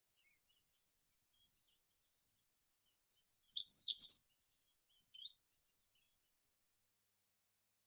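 Small songbirds singing in the summer park: faint high chirps in the first couple of seconds, then a loud phrase of quick sweeping notes about halfway through, with a few more short notes just after.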